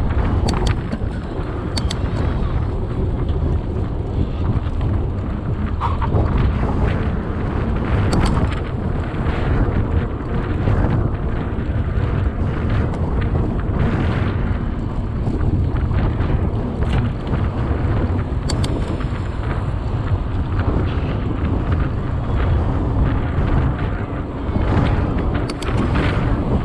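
Wind buffeting the microphone of a camera on a moving mountain bike, a steady heavy rumble, with a scattered handful of short clicks and rattles from the bike.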